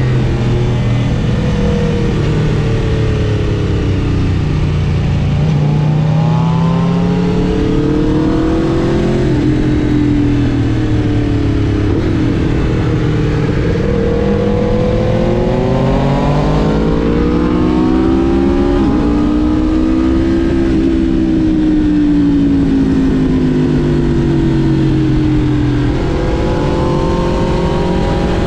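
Aprilia RSV4 Factory's V4 engine under riding, its revs rising and falling again and again as the bike speeds up and slows, with a few quick jumps in pitch at gear changes, over a steady rush of wind.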